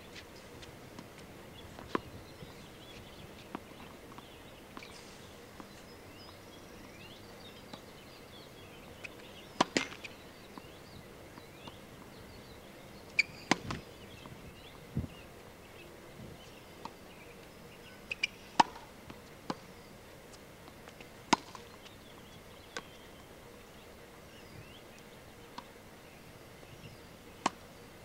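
Tennis balls bouncing on a hard court and being hit by a racket: about a dozen short sharp pops every few seconds, some coming in quick pairs of a bounce and a hit.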